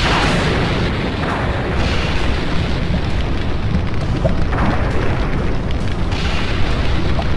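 Animation sound effects of a planet erupting: a steady deep rumble of explosions, with a few falling whooshes over it.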